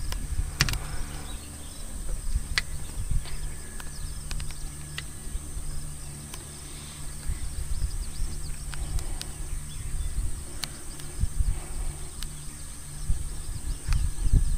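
Forest ambience: a steady high-pitched insect drone, typical of crickets or cicadas, over a low rumble, with a few scattered clicks.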